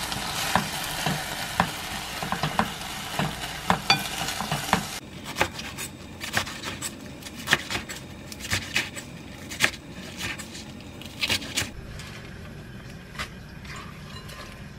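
Soy-sauce bulgogi and onions sizzling in a frying pan as a wooden spatula stirs through it, for about the first five seconds. The sizzle then stops and a knife chops lettuce on a wooden cutting board in sharp, uneven taps, giving way near the end to quieter rustling as the leaves are gathered into a glass bowl.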